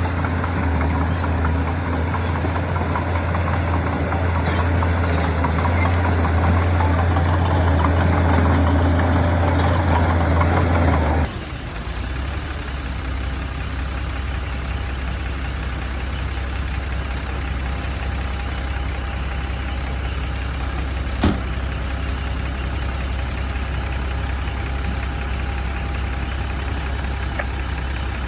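Heavy diesel engine of earthmoving machinery running steadily, then dropping abruptly to a lower, quieter running note about eleven seconds in. A single sharp click comes about two-thirds of the way through.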